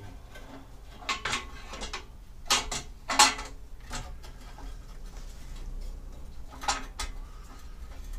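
Scattered sharp clicks and knocks of plastic trim and a plastic clip being handled and pushed into place around a car's radiator and condenser support, the loudest a little over three seconds in.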